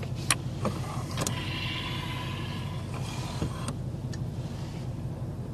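Bentley Continental GT's rotating dashboard display turning from the analogue dials to the touchscreen. A few clicks from the button come first, then an electric motor whines for about two and a half seconds and stops with a click, over a steady low cabin hum.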